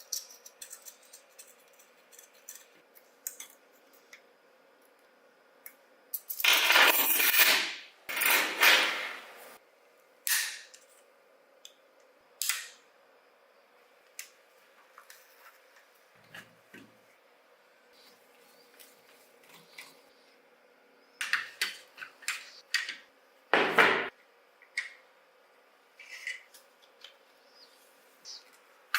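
Workshop hand-tool sounds during a car restoration: scattered clicks, taps and clinks of tools and parts. There are two longer noisy bursts about six and eight seconds in and a shorter one near the end.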